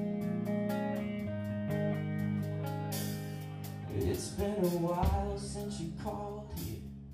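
Live band playing an instrumental passage: electric guitars ringing sustained chords over a steady ticking beat, with a wavering, bending melody line coming in about four seconds in.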